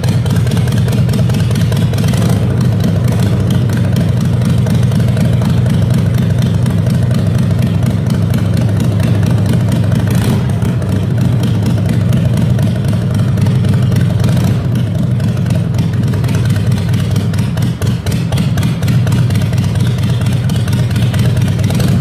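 Harley-Davidson air-cooled V-twin engine of a custom chopper running on the stand at a steady idle, with a few brief throttle rises.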